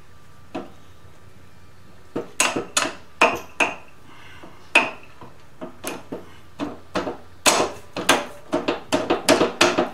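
Steel axle and shim clinking against the motorcycle's front hub and fork legs as the axle is worked back and the shim dropped in: a run of irregular sharp metallic clinks and knocks, starting about two seconds in.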